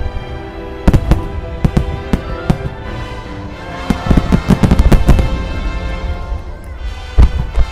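Fireworks shells of a starmine bursting over music: scattered sharp bangs, a rapid cluster of bangs about four to five seconds in, and one big bang near the end.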